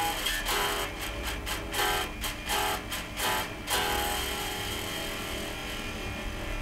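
Electric guitar played through a tube amp: a run of short, choppy chord stabs, then a chord left to ring out from about four seconds in, with the amp's steady hiss underneath.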